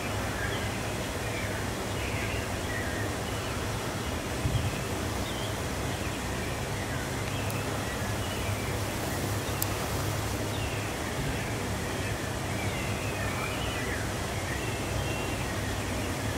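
Outdoor night ambience: a steady low hum and background noise, with many short, faint chirps scattered through it.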